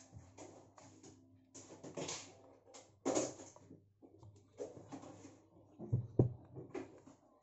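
A USAMS plastic tablet stand being handled while a cased tablet is set in its clamp and tilted: irregular rubbing and scraping of plastic with a few knocks, the sharpest two close together about six seconds in.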